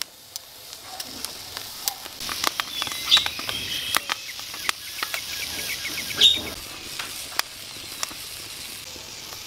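Scattered crackles and pops over a faint hiss as chillies, garlic, kencur and shrimp paste dry-roast on a hot flat pan, with a piece of coconut charring on the grill beside it. A couple of short high chirps come through, about three and six seconds in.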